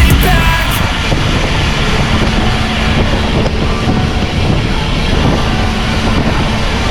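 Wind buffeting the microphone and road noise from a ride, a steady rushing rumble; music drops out about a second in.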